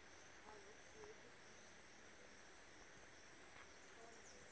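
Near silence: faint forest ambience with a steady high-pitched hum, and two brief, faint, low hoot-like calls about half a second and a second in.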